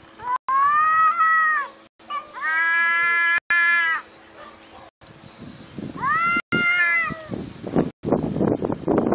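Two cats in a standoff, caterwauling: three long, drawn-out yowls, each rising and then falling in pitch, the sign of a territorial fight brewing. Near the end the yowling gives way to a harsh, rough, noisy spell.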